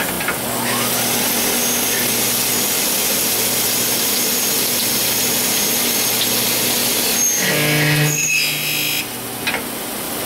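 Miyano BNX-51MSY CNC lathe drilling with two tools cutting at once, one on the main spindle and one on the sub-spindle: a steady hiss of cutting over a low machine hum. About seven seconds in, a pitched whine sets in for a second and a half, then the sound drops a little.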